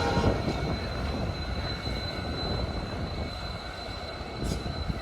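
Passenger train running, a steady low rumble with a faint high steady whine over it.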